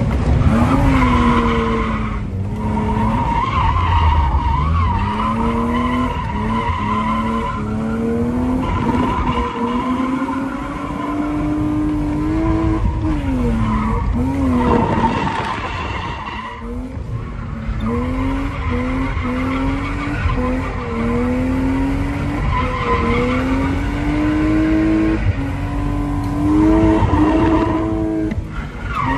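BMW E36 320i's 2.0-litre straight-six revving up and down again and again while drifting, heard from inside the cabin, with the tyres squealing and skidding.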